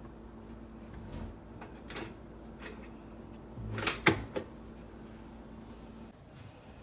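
Light clicks and knocks of kitchen handling, with a cluster of louder knocks about four seconds in, over a low steady hum that stops about six seconds in.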